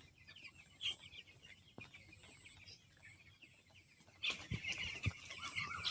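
Twelve-day-old broiler chicks cheeping, many small high peeps overlapping, growing louder about four seconds in, with a couple of faint low knocks.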